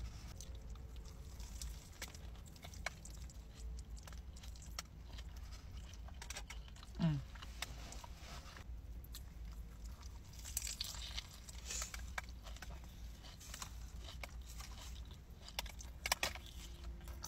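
A person chewing big mouthfuls of a cheeseburger with lettuce and a grilled-cheese bun, with many small wet mouth clicks and smacks over a low steady hum. There is a brief falling vocal 'mm' about seven seconds in.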